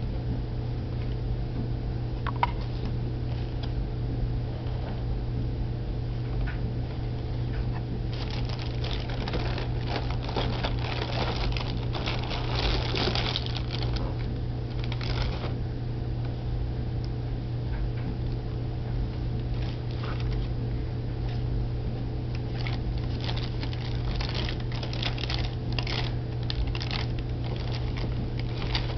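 Plastic bag liner and cardboard of a cereal box crinkling and rustling as it is handled and pulled out of the box, in two spells, one around the middle and one near the end, over a steady low hum.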